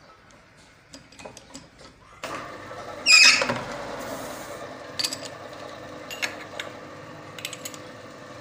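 Metal lathe switched on about two seconds in, then running steadily with its four-jaw chuck spinning a rough casting. A loud brief burst comes as it gets going, and a few sharp clicks follow. Before it starts, faint clicks of metal parts being handled.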